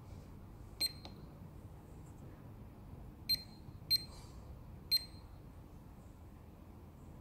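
Four short, high-pitched beeps from a Megger MIT1020/2 insulation resistance tester as its front-panel buttons are pressed: one about a second in, then three more over the next two seconds.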